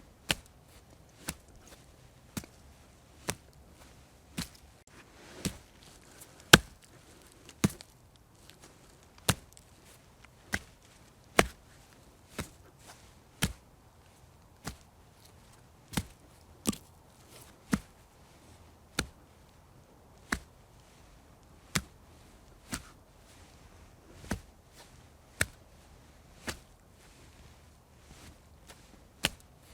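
Face-slap sound effects played one after another: single sharp slaps, about one a second, each a little different in loudness.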